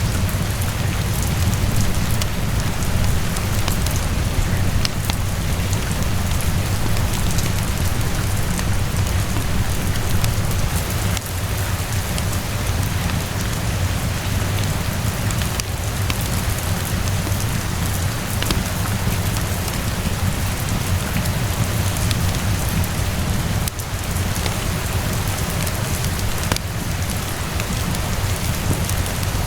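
Steady rain falling, with a deep steady rumble underneath and scattered faint ticks.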